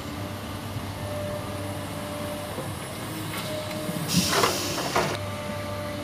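Hino dump truck's diesel engine running steadily, with an excavator working alongside. About four seconds in, a loud hiss of air lasts about a second and cuts off sharply, as the truck's air brakes release and it creeps forward.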